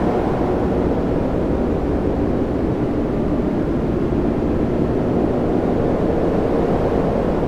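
Storm-at-sea ambience: a steady, low roar of wind and rough sea, with no separate crashes or thunder claps.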